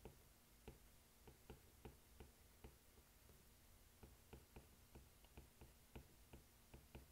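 Faint, irregular clicks of a stylus tapping and writing on a tablet screen, about two or three a second and coming quicker in the second half, against near silence.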